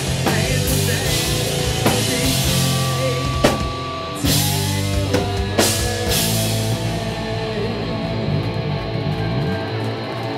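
Rock band playing live at full volume: drum kit hits over distorted guitar and bass. After about six seconds the drum hits thin out, leaving held guitar and bass notes ringing.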